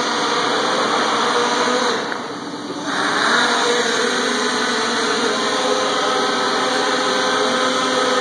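Large RC multicopter's propellers running with a steady buzzing whir as it hovers low. About two seconds in, the throttle drops for roughly a second, so the sound dips, then it spools back up.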